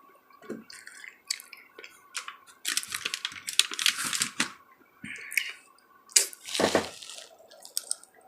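Close-miked chewing and mouth sounds of a person eating chicken wings: irregular wet clicks and smacks. One louder, deeper mouth sound about six and a half seconds in.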